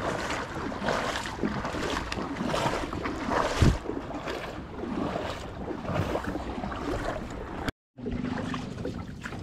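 Kayak paddle strokes splashing through the water, with wind on the microphone, and a single knock about three and a half seconds in.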